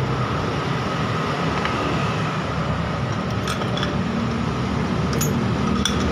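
Steady low hum and hiss of background noise, with a few faint metallic clicks from the second half on as the metal parts of a drill stand are handled and its drill-holder bracket is brought onto the steel column.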